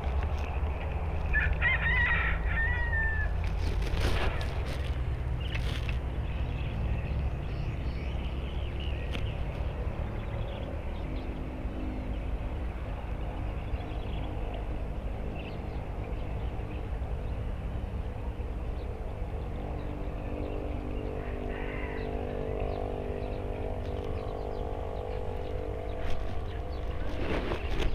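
Wind rumbling on the microphone, with a short warbling bird call about two seconds in. From about ten seconds on, a steady low hum of several pitches joins it.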